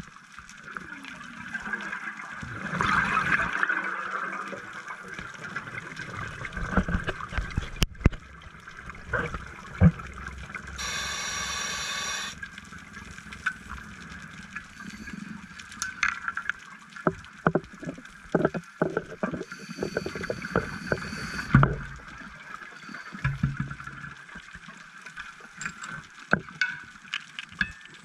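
Scuba diver's breathing heard underwater: two hissing inhalations through the regulator and bubbly exhalations with crackling bubble pops, over a steady underwater hiss.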